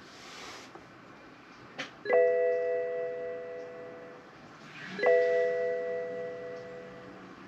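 An electronic chime sounds twice, about three seconds apart, each a chord of clear tones that rings out and fades over about two seconds. A short hiss comes at the very start, and a brief click just before the first chime.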